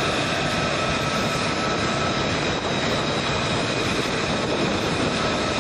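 F-35B Lightning II's Pratt & Whitney F135 turbofan running at ground idle: a steady rush of jet noise with high, even whining tones.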